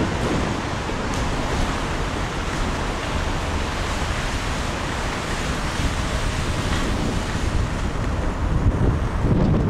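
Steady rushing road and wind noise of a car driving, heard from inside the car.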